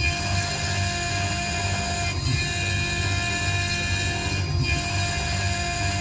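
IC grinding machine's high-speed spindle running steadily as it grinds the memory chip off an iPhone 6S logic board: a steady whine of several tones over a low rumble. The sound dips briefly about every two seconds.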